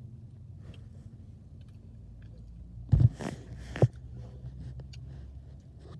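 Close-up eating sounds of someone eating an Oreo Blizzard, small mouth clicks over a steady low hum, with two loud knocks about three seconds in.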